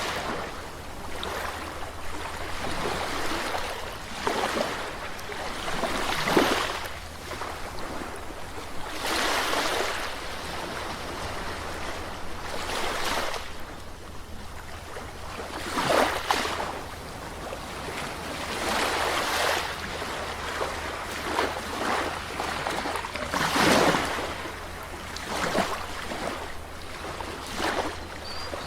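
Calm sea waves breaking and washing up the shore, one swell of rushing surf every few seconds, over a steady low rumble.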